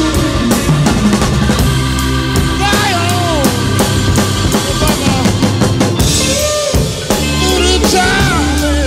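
Rock music with a full drum kit and a lead instrument playing bending, sliding notes, in an instrumental stretch without singing.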